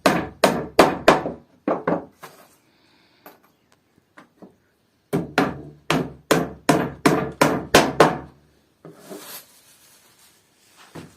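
Hammer blows on wood, about three a second, in two runs: about six at the start and about ten more after a pause of a few seconds.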